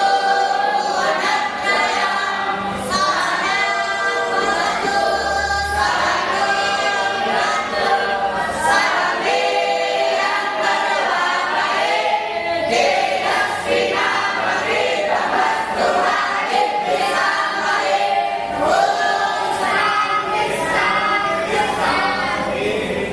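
A group of voices singing or chanting together in unison, like a choir, without a break.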